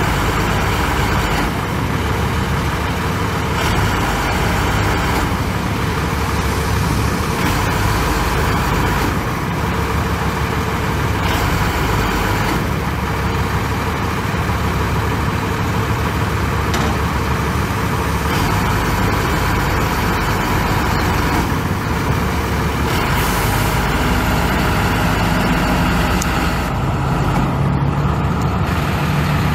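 Ford F450's 7.3-litre V8 diesel engine running steadily at a fairly even speed.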